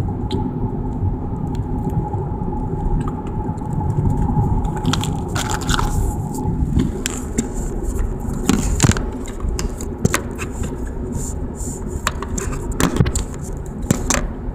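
Steady road and engine rumble inside the cabin of a moving Cadillac SRX, with scattered clicks and scrapes from a hand-held camera being moved about.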